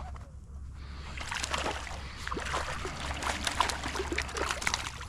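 Water splashing and sloshing close against a kayak, with a dense run of small clicks and splashes from about a second in.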